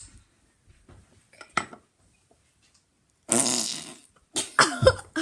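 Slime pressed in a container, letting out a loud wet fart-like noise as trapped air squeezes out, lasting under a second, about three seconds in.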